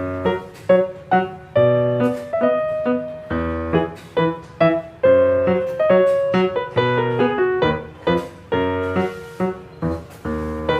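Background piano music: a light, bouncy tune of struck notes and chords.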